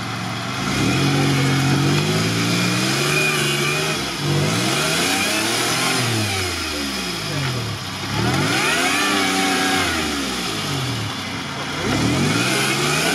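Lifted Toyota 4Runner's engine revving hard in about four surges, each rising and falling, as the stuck SUV strains to climb over logs with its wheels grinding on the wood. A higher squeal comes in briefly during the third surge.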